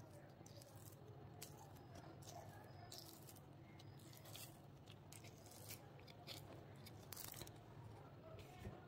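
Faint, irregular crackling as a flexible silicone mold is peeled off a cured resin druzy casting.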